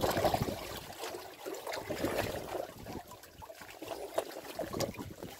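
Seawater splashing and trickling around a small wooden fishing boat, uneven rather than steady. A few sharp knocks and rubs sound close to the microphone about four to five seconds in.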